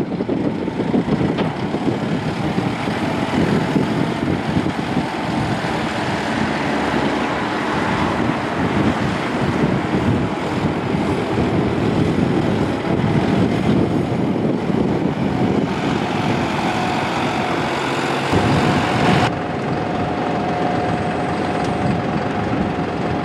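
2023 John Deere 5075E tractor's three-cylinder turbo diesel engine running as the tractor drives, then idling steadily close by from about 19 seconds in.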